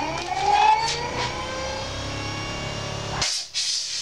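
Tradesman variable-speed DC grinder with 8-inch CBN wheels spinning up after being switched on: a rising whine that levels off into a steady hum. It cuts off suddenly about three-quarters of the way in.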